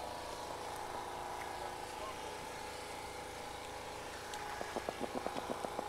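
A steady mechanical hum with several tones, like an engine running. From about four and a half seconds in, a rapid, even clicking joins it, roughly seven clicks a second.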